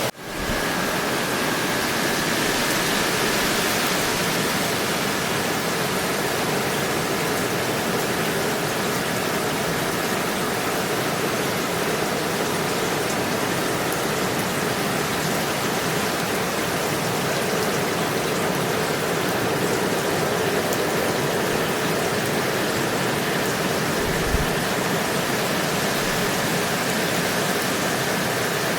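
Steady, even rain sound with no letup. It drops out for a moment at the very start and swells back within half a second, like a loop being rejoined.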